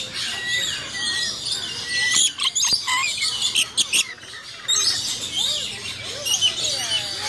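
Rainbow lorikeets chirping and squawking, a busy stream of short, high calls, with brief wing flutters as birds flap and land on an arm to feed from a nectar cup.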